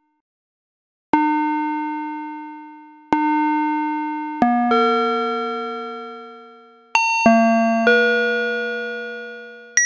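Electronic square-wave synth tune from an animated Frankenstein figure's sound chip. About a second in it begins a slow run of single notes and chords, each starting sharply and fading away.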